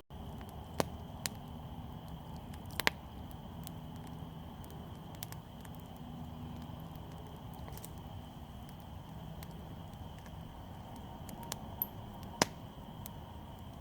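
Small campfire of pine branches, pine needles and leaf debris crackling, with sharp pops every few seconds over a low steady hiss.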